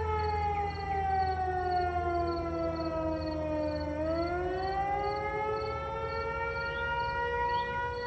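Federal Signal Eclipse 8 and Model 2 fire sirens sounding an emergency call. The main siren tone slides down in pitch for about four seconds, then climbs back up, and a second, steadier siren tone joins about halfway through.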